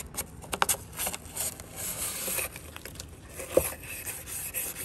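A brush scrubbing dirt out of the track of a plastic window frame, with a run of quick scratchy strokes. A sharp tap stands out about three and a half seconds in.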